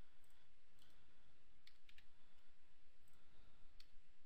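Scattered clicks of a computer mouse and keyboard over a faint steady hiss: a single click about a second in, a quick cluster of three or four around the middle, and another near the end.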